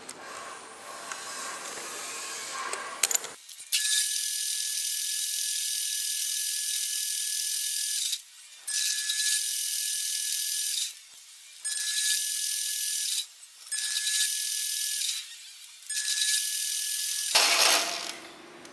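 Metal lathe cutting a small steel pin: a steady high-pitched whine over a hiss, cutting off abruptly and resuming four times. Before the cut starts, quieter clicks and handling of the part in the chuck.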